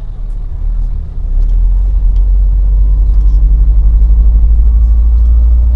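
Heavy truck's diesel engine and road rumble droning inside the cab while driving, growing louder about a second in and then holding steady with a fast throb.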